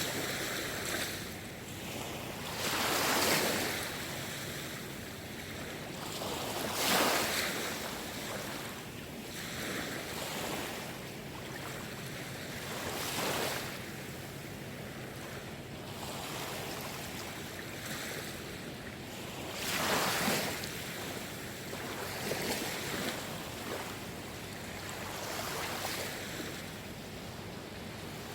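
Sea waves washing in and drawing back, each wash swelling up and fading over a second or two, with the biggest surges about 3, 7 and 20 seconds in.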